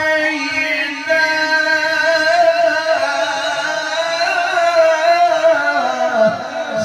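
A male qari's melodic Quran recitation, amplified through a microphone and PA. He holds long, ornamented notes, and the phrase ends with his voice falling in pitch near the end.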